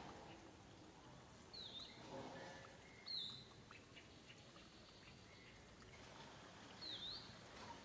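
Faint outdoor ambience with three short, high bird chirps, each dipping and then rising in pitch.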